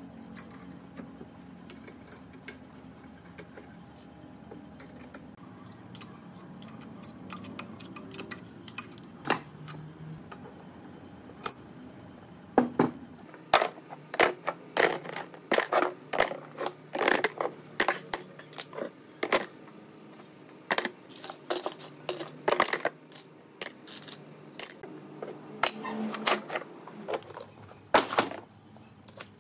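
Small metal parts clinking and clattering against one another: a few scattered clinks at first, then a quick, uneven run of sharp clinks through the second half.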